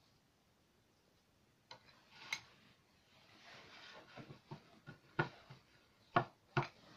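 Hands kneading and pulling sticky fluffy slime, made from glue and shaving cream, out of a bowl: a few soft clicks at first, then from about four seconds in a run of sharp, short sticky smacks and pops as the slime is pulled off the hands and bowl.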